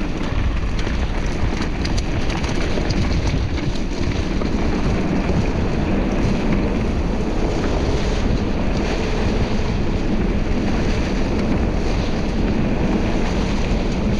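Steady rush of wind buffeting the microphone of a camera carried on a mountain bike ride, with the low rumble of the bike rolling over the trail.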